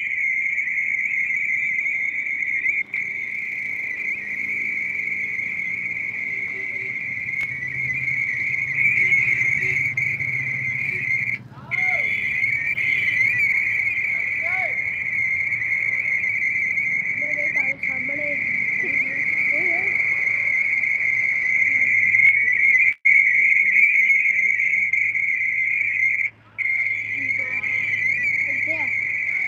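A continuous shrill, high-pitched warbling whine that cuts out briefly three times, with faint voices underneath.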